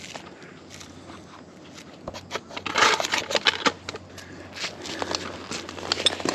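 Irregular scraping, clicking and rustling of a tree climber shifting on bark and handling climbing gear and branches, with a cluster of louder scrapes and knocks about three seconds in.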